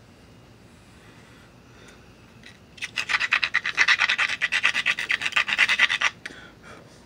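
Hammerstone scraped rapidly back and forth along the edge of a stone being knapped, about ten rasping strokes a second for roughly three seconds, starting about three seconds in: grinding the edge to make a continuous striking platform.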